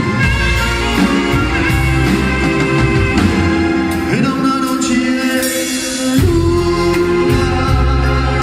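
Live band music with a voice singing over sustained keyboard-like chords and a heavy bass line. The bass drops out for about two seconds in the middle and comes back in abruptly about six seconds in.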